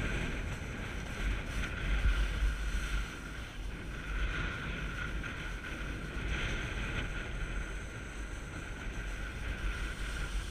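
Snowboard sliding over groomed snow with a steady scraping hiss that swells a few times, with wind buffeting the camera's microphone in a low rumble.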